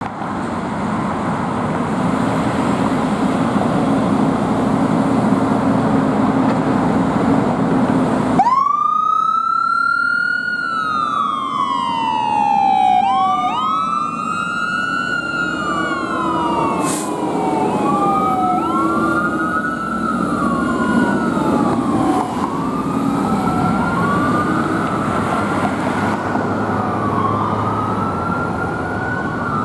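A fire engine's siren wailing: each cycle rises quickly and falls slowly, over and over, with a second wail overlapping out of step later on. For the first eight seconds or so, before the siren, there is a steady rumble with a low hum.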